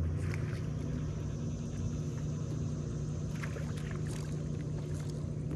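Steady low engine hum of a distant ship across the river, with a few faint clicks.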